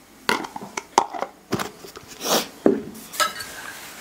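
Forks and spoons clinking and scraping against ceramic plates while eating, a string of sharp knocks with a longer scrape about two seconds in.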